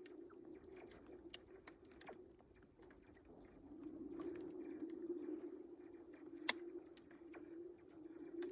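Thawing lake ice humming with a steady low drone that swells about halfway through, over a scatter of small ticks and cracks, with one sharper crack about three-quarters of the way in. The sounds of a lake's ice cover breaking up in spring.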